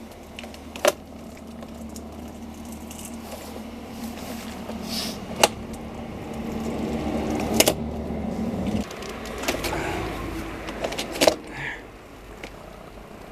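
Sharp plastic-and-metal clacks and scraping as a dryer vent cover is pried and wrenched off an outside wall, about four loud knocks in all. A steady low hum runs underneath and stops about nine seconds in.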